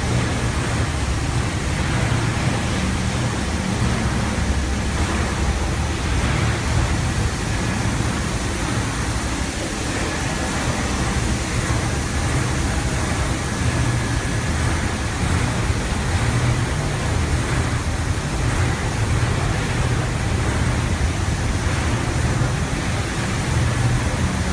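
Industrial carpet washing machine running steadily: a constant low hum under an even rushing noise.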